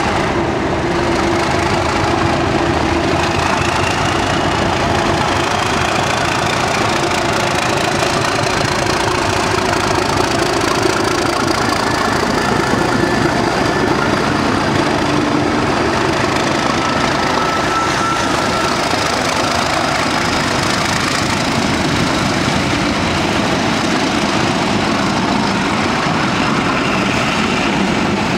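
Two Class 37 diesel-electric locomotives pulling away under power, their English Electric V12 diesel engines running hard as they accelerate past, with the carriages rolling by near the end.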